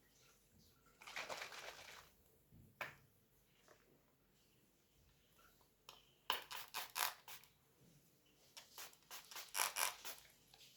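Small objects being handled at close range: a brief rustle, a single click, then two runs of quick clicks and taps.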